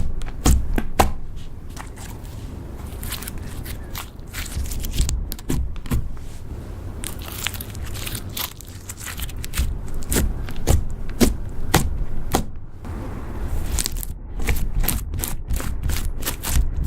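Slime being squished and kneaded by hand, with irregular sticky pops and crackles.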